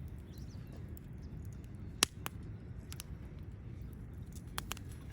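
Wood fire crackling: a few sharp pops, the loudest about two seconds in and two more close together near the end, over a steady low rumble.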